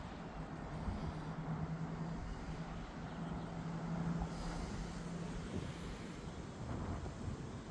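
Steady low mechanical rumble with a humming tone that fades out about five and a half seconds in.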